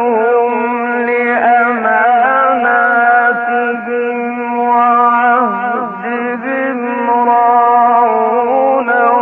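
Mujawwad Quran recitation: a man's voice drawing out long melodic notes with ornamented turns, on an old recording that sounds narrow and muffled.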